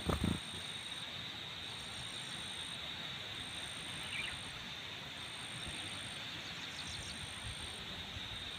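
Steady insect chorus: a continuous high buzz with a higher-pitched chirp repeating about every second and a half. A couple of low thumps come right at the start.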